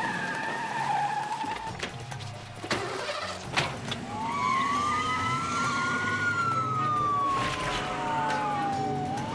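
Police car pulling away hard, its engine running and wheels spinning in loose dirt, with two sharp knocks about three seconds in. Its siren starts a slow wail about four seconds in, rising and then falling, and starts to rise again near the end.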